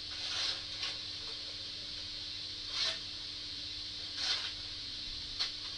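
DCC sound decoder in a Hornby Duchess steam locomotive model playing stationary steam sounds through its small speaker: a steady hiss with a faint hum under it, broken by about five short, louder puffs of steam at irregular intervals.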